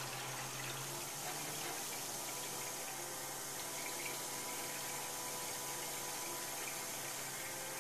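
Watercooling pump running with water churning and gurgling in the reservoir as coolant is pushed around a freshly filled loop that still has air bubbles in it.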